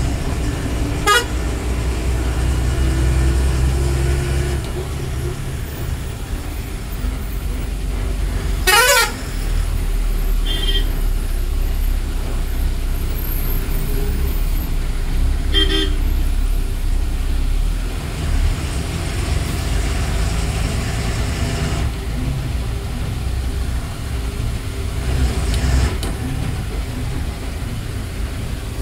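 Ashok Leyland 180 hp bus diesel engine running steadily on the move, heard from the driver's cab. Vehicle horns toot briefly now and then, the loudest about nine seconds in.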